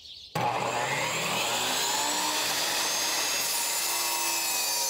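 Portable jobsite table saw switched on about a third of a second in and running steadily while a wood board is fed through the blade to rip a 3-inch strip.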